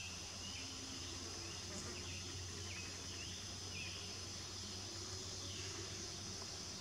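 Faint, steady insect chorus, a high even buzz, with short faint chirps now and then.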